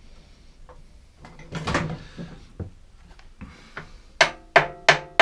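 Rummaging and handling noises, then from about four seconds in quick light hammer taps, about three a second, each with a short metallic ring. A small hammer is striking a metal bar to knock a stuck carburettor loose from a small two-stroke petrol generator.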